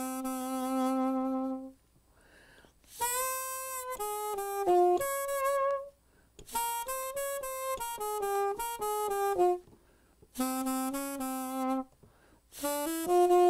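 Saxophone played through a soundproofing mute: a melody in short phrases, opening on a held note, with brief breaths between phrases.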